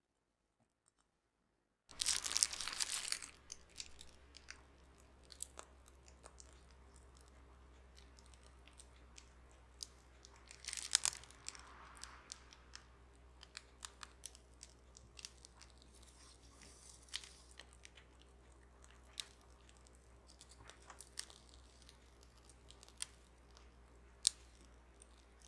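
Plastic piping bag crinkling and rustling as it is squeezed, with soft crackles and squishes of sakura mont blanc cream being piped out, over a faint low hum. The loudest crinkling comes about two seconds in, after a silent start, and again around eleven seconds.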